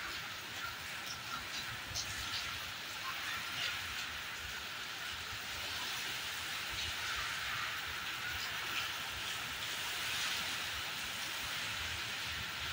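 Heavy rain pouring steadily onto a flooded courtyard: a dense, even hiss with scattered drop splashes.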